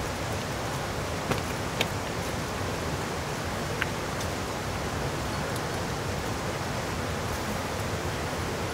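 Steady rushing outdoor noise, even throughout, with a few short sharp clicks in the first four seconds.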